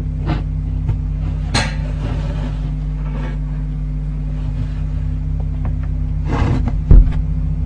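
Steady electrical hum from the nestbox camera's microphone, with scattered knocks and rustles inside the barn owl nestbox, a short hiss about a second and a half in, and a sharp thump near the end, the loudest sound.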